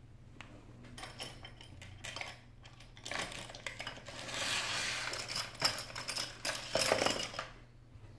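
Small metal objects clinking and rattling together, with scattered clicks, densest around the middle and with a few sharper knocks near the end.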